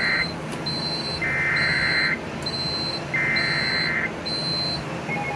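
Electronic alert beeping from emergency-alert receiving equipment: a short high beep repeats about every three-quarters of a second, alternating with three longer, lower buzzing tones about a second each. Near the end the pattern changes to a steadier, quieter tone.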